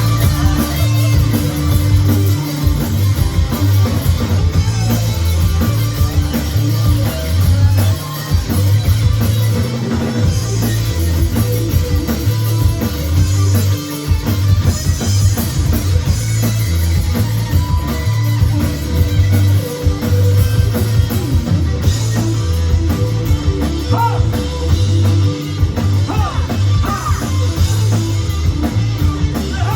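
Live rock band playing, with electric guitar, bass and a drum kit, recorded loud from the audience.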